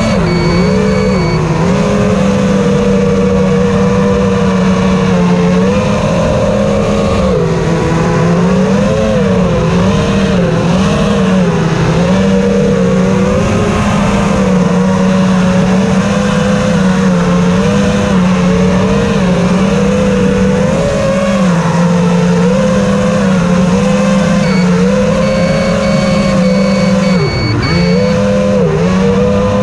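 FPV racing quadcopter's motors and propellers whining steadily, the pitch wavering up and down with the throttle and dipping briefly near the end.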